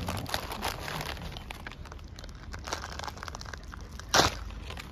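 Rustling and crinkling close to the microphone, made up of many small crackles, with one short, loud crackle a little after four seconds in.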